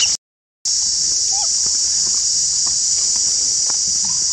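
A steady, high-pitched drone of insects in the trees, cut by a brief silence just after the start.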